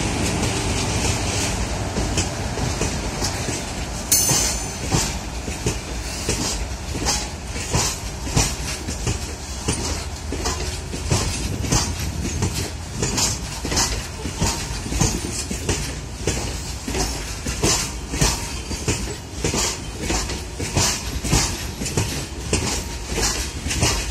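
Twin WAG-7 electric locomotives running past, then from about four seconds in a long rake of loaded open freight wagons rolling by, their wheels clattering over the track in a steady clickety-clack rhythm.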